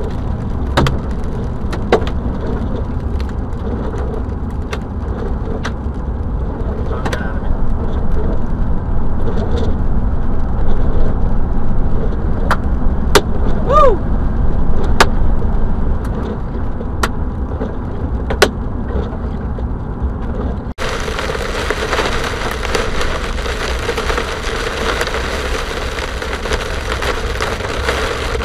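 Car driving at road speed, its tyre and engine noise heard from inside the cabin, with scattered sharp ticks on the windshield. About 21 seconds in the sound changes abruptly to a dense, steady hiss of heavy rain beating on the car.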